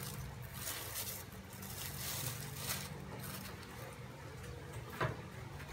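Soft scraping and handling noises of a small knife smoothing shrimp paste on bread squares on a plate, over a steady low hum, with one sharp click about five seconds in.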